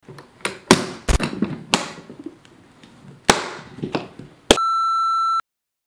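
Plastic lid of a yellow Pelican hard case being shut and its latches snapped closed: a run of sharp clacks and knocks. Near the end, a steady electronic beep lasting under a second that cuts off abruptly.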